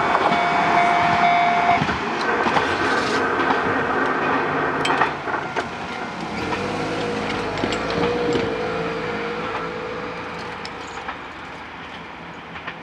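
KiHa 11 diesel railcar running along the track and moving away, its engine and wheels on the rails fading steadily. A steady high whine sounds in the first two seconds, and a wavering whine comes in the middle.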